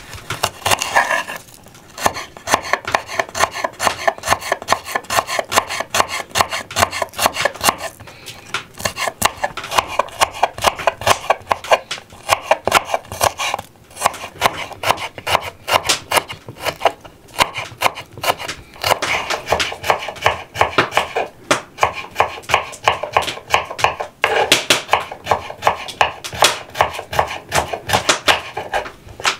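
Kitchen knife slicing garlic cloves on a wooden cutting board: rapid, even taps of the blade against the wood, several a second, broken by a few short pauses between cloves.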